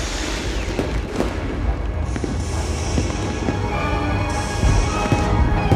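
Aerial fireworks bursting, a string of bangs and low booms with hissing, over show music whose held tones come in more strongly about halfway through.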